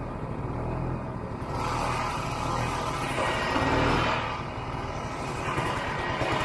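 Snowmobile engine running as the sled travels along a packed snow trail, with a steady drone under the noise of the track and the rush of air. It swells louder about one and a half seconds in and again around four seconds.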